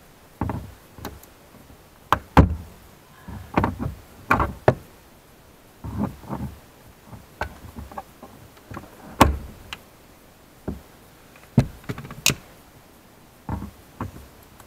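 Diagonal cutting pliers gripping and prying plastic push-in retaining tabs out of a Lexus IS 200t trunk trim panel: a dozen or so sharp plastic clicks and knocks at irregular intervals, with rattling and handling noise between them.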